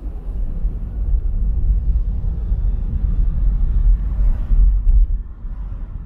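Steady low rumble of a car on the move: road and wind noise with no engine tone, swelling around four to five seconds in and easing a little after.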